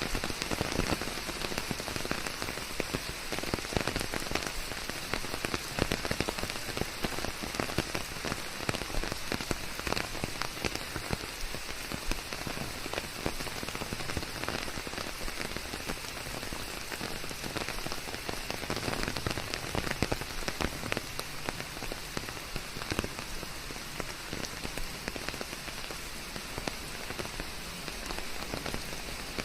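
Steady forest rain: a dense, even patter of countless drops, blended with a white-noise hiss.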